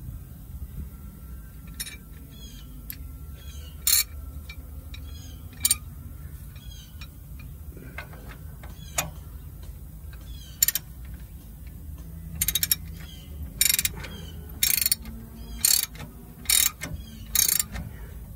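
Socket ratchet wrench clicking as the check plug is screwed back into a dump truck's rear differential. It gives short ratcheting strokes, a few spaced seconds apart at first, then coming quicker and louder over the last several seconds.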